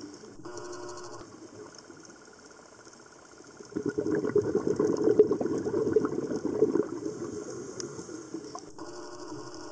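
A scuba diver's exhaled air bubbling and crackling underwater, a burst starting a little over a third of the way in and lasting about three seconds, over a fainter steady background.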